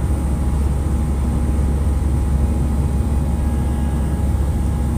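Airbus A320 jet engines and airflow heard inside the cabin during the climb after takeoff: a steady low rumble with a faint thin whine above it.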